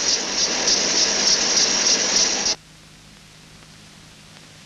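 Workshop noise of a metal-cutting machine tool running: a loud steady hiss with a quick regular ticking, about three ticks a second, that cuts off abruptly about two and a half seconds in. After that comes only a faint soundtrack hiss with a low steady hum.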